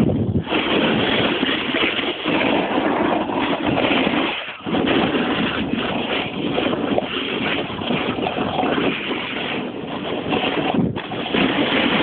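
Wind rushing over the microphone mixed with the scrape of a snowboard sliding and carving over packed snow, a steady rough noise with brief lulls about four and a half seconds in and near the end.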